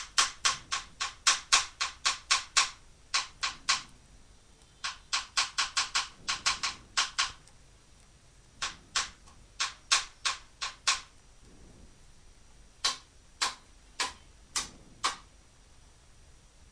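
Typing on a computer keyboard: quick runs of sharp key clicks broken by short pauses.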